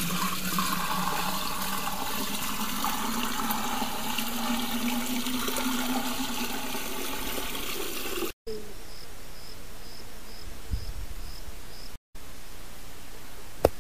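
Cow urine poured from a plastic bucket into an earthen clay pot: a steady gushing pour with a hollow tone that rises slightly as the pot fills. It cuts off about eight seconds in, leaving a faint hiss with a soft, regular high ticking.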